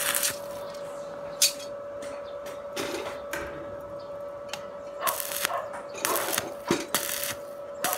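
Stick (arc) welding on steel: the electrode crackling and sizzling in short, irregular bursts as the arc is struck and broken several times, over a steady hum.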